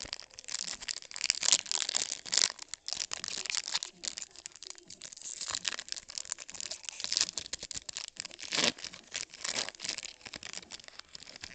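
Rapid crinkling and crackling as Topps Chrome baseball cards and their pack are handled.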